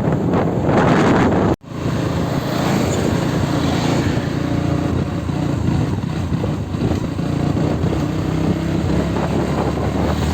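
Motorcycle engine running steadily while riding, with rushing wind noise at first. The sound cuts out abruptly about one and a half seconds in and resumes, the engine's steady hum clearer after the break.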